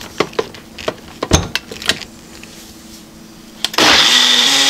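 Nutri Ninja personal blender's motor starting with a sudden loud whir and high whine near the end, blending fruit and yogurt. Before it, a few knocks and clicks as the blending cup is fitted onto the base.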